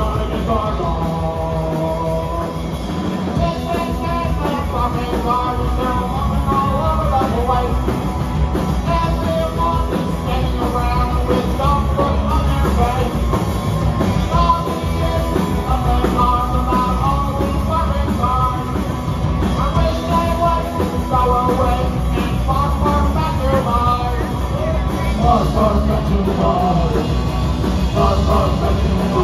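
A punk rock band playing live, with singing over loud, continuous guitars and drums.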